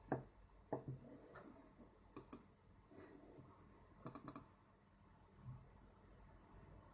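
Sharp clicks of a laptop's controls over a faint steady background: single clicks near the start and about a second in, a quick pair about two seconds in, and a fast run of about four clicks about four seconds in.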